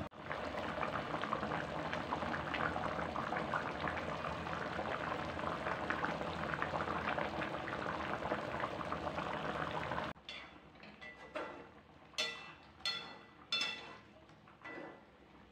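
Coconut-milk fish curry boiling in a wok, a dense steady bubbling. About ten seconds in it cuts off suddenly, and a metal ladle stirring the curry clinks against the pan four times.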